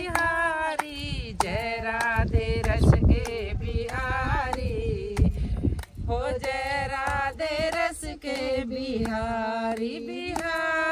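Two women singing a Hindu devotional bhajan together, with hand claps keeping time.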